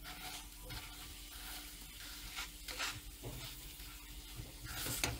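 Metal spoon spreading cooked beans over dry-roasted nopal paddles in a hot pan, with a soft sizzle and a few brief scrapes of the spoon.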